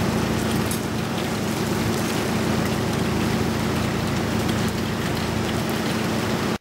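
Heavy cyclone rain and wind make a dense, steady hiss, with a steady low hum underneath.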